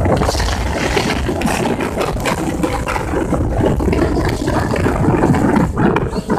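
Passenger boat under way: steady engine noise mixed with wind on the microphone and the rush of water along the hull.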